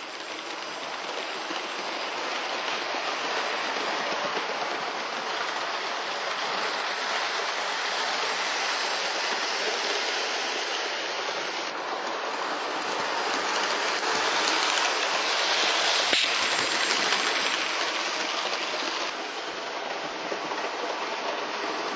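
Hornby OO-gauge live steam model locomotive running round the layout: a steady hiss of steam mixed with its wheels rolling on the rails, getting louder in the middle as it comes close and fading again near the end.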